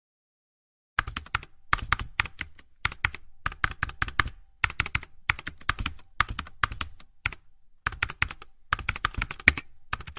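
Keyboard typing sound effect: rapid key clicks in runs with short pauses, starting about a second in, matching the text appearing on screen letter by letter.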